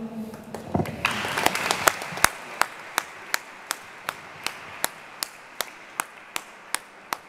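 Audience applause that starts about a second in and thins out, while one pair of hands keeps clapping at a steady beat of about two to three claps a second.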